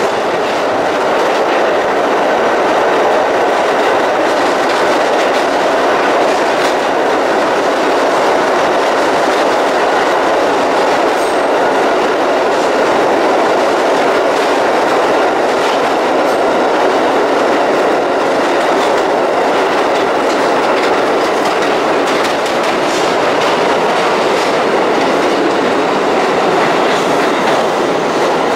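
New York City subway train running at speed through a tunnel, heard from inside the car: a steady loud rumble of steel wheels on rail, with occasional clicks.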